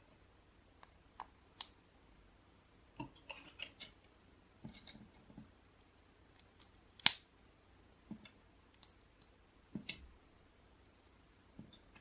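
LEGO plastic bricks clicking and snapping together as they are handled by hand: scattered sharp clicks, some in quick little clusters, the loudest about seven seconds in.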